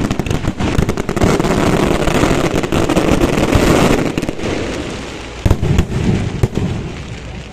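Fireworks display going off: a dense barrage of crackling bursts and bangs, thinning out after about four seconds, with a few loud separate booms and then dying away near the end.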